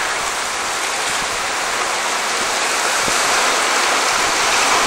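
Steady rushing of sea water washing among rocks on a rocky shore.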